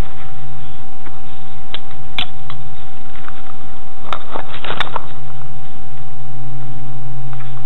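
A can of expanding foam sealant and its applicator straw being handled, giving a few sharp clicks and then a cluster of clicks and knocks about four to five seconds in, over a steady electrical hum and a thin high whine.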